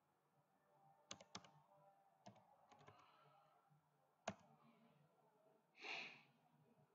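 Faint, irregular clicks of a computer keyboard and mouse, a handful of sharp ticks in small clusters, the loudest about four seconds in, followed near the end by a brief soft hiss.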